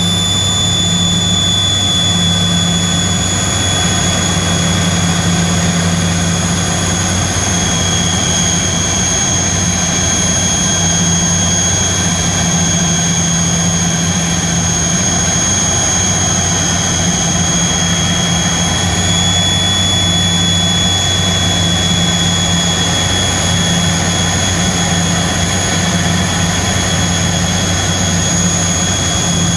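Cabin noise of a Tupolev Tu-134B-3 airliner, heard from inside, during its descent: the rear-mounted Soloviev D-30 turbofans give a steady, loud rush with a low hum and a high fan whine. The whine drops a little in pitch about eight seconds in and comes back up about eleven seconds later as the engine power changes.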